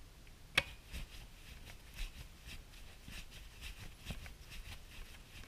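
Small hand-tool work on headlight mask screws with an Allen hex wrench: one sharp metallic click with a short ring about half a second in, then a run of faint small clicks and taps.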